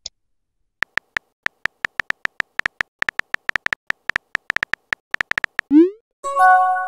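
Synthetic phone-keyboard typing ticks from a texting-story app, a quick uneven run of short clicks for several seconds as a message is typed. Near the end comes a short rising swoop as the message sends, followed by a held electronic chord tone.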